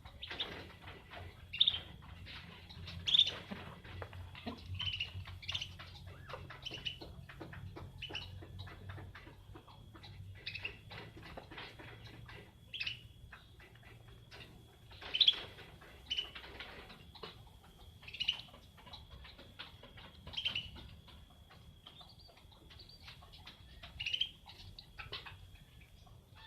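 Birds chirping: short, sharp calls every second or two, some much louder than others, over a faint steady high tone.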